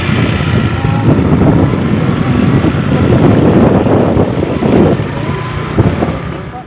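Heavy wind noise on the microphone from a moving vehicle, with the vehicle running underneath. It fades out near the end.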